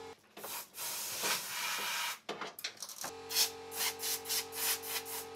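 Compressed-air blow gun on a compressor hose, hissing as it blows rust debris out from behind a cut-out car body panel: one long blast of about two seconds, then a run of short blasts, about three a second.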